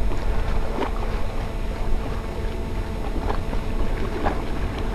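Wind buffeting the microphone by the sea: a steady low rumbling rush, with a few faint ticks about one, three and four seconds in.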